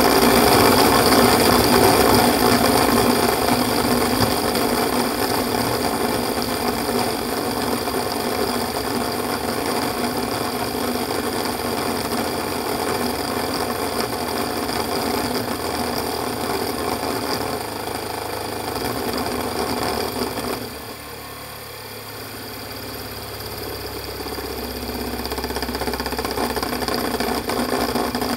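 High-speed rotor of an active-magnetic-bearing rig, delevitated at about 8000 RPM, running down on its backup (catcher) ball bearing: a loud, rapid mechanical rattle with many steady tones, slowly easing. About two-thirds through the noise drops suddenly, then a low hum slowly builds.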